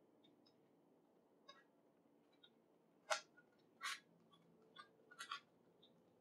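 Layers of a 3D-printed Rubik's Cube-style puzzle cabinet being twisted by hand: scattered sharp clicks and clacks, the loudest about three seconds in and a quick cluster a little before the end.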